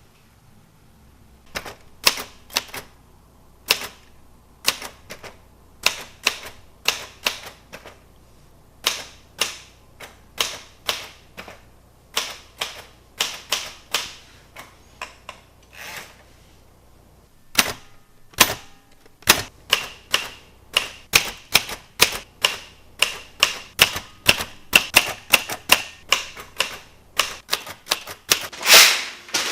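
Typewriter keys striking: slow, uneven keystrokes at first, then quicker runs of typing from about two-thirds in, with one louder strike near the end.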